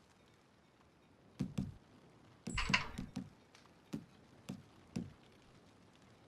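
A few dull knocks and thumps: a pair, then a brief rustling clatter about two and a half seconds in, then three single knocks about half a second apart.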